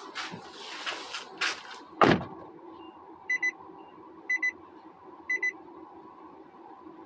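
A sharp knock about two seconds in, followed by three pairs of short, high electronic beeps about a second apart, over a steady low hum.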